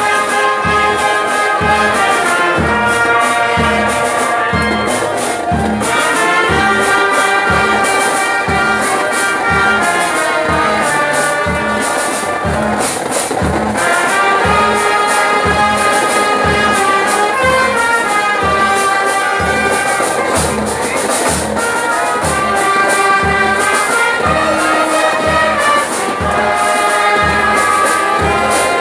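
Military police brass band playing a tune: trumpets and trombones carrying the melody over a steady drum beat.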